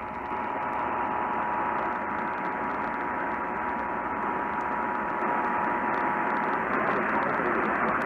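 Portable AM radio's speaker giving heavy static hiss, with the faint two-tone Emergency Alert System attention signal under it that stops about six and a half seconds in.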